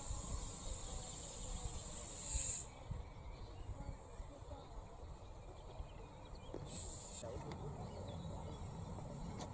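A 15-inch-gauge steam locomotive approaching slowly, with steam hissing for the first two and a half seconds and a shorter hiss about seven seconds in, over a low rumble.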